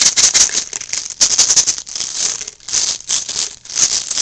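Plastic airsoft BBs being poured into a cupped sheet of paper: a dense rattle of many small pellets hitting the paper and each other, coming in uneven bursts.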